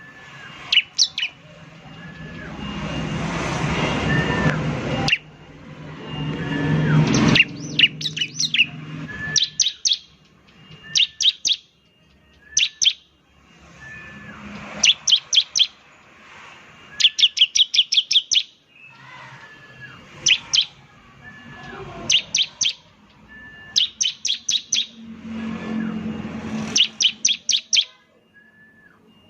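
Bar-winged prinia (ciblek) singing in quick bursts of rapid, sharp, high repeated notes, the fast 'shooting' (nembak) song. A rumbling rushing noise swells and then cuts off during the first seven seconds.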